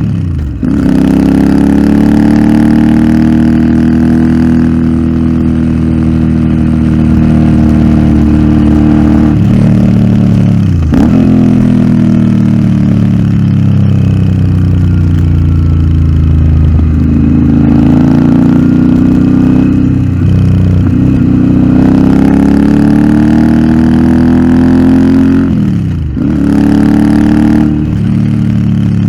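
Royal Enfield Interceptor 650's parallel-twin engine through a Nuke aftermarket exhaust, pulling through the gears. The pitch climbs and falls, with sharp drops at gear changes about a second in, around the middle, and twice near the end.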